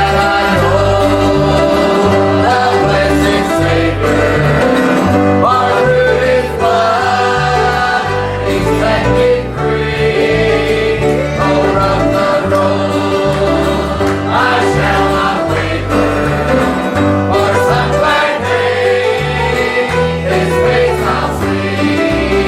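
Gospel song: singing over instrumental accompaniment with a steady, stepping bass line.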